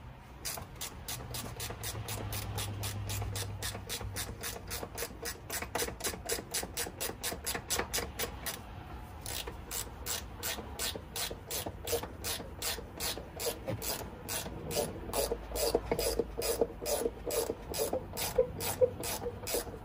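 Hand ratchet wrench clicking steadily, about three to four clicks a second, as seat mounting bolts are undone. There is a brief pause about nine seconds in.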